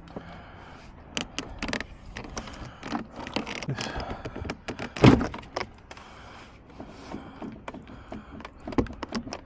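Plastic clicks, knocks and short scrapes of hands and tools working on a car's interior door trim panel, with a louder knock about five seconds in and another near the end.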